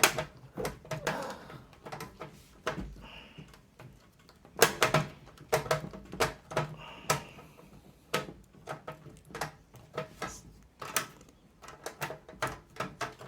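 Irregular clicks, taps and knocks of a screwdriver and screws working against a desktop PC case while case fans are being screwed in, some in quick clusters.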